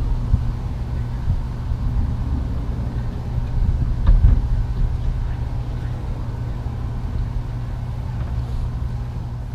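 Steady low outdoor rumble with a few soft thumps, easing off near the end.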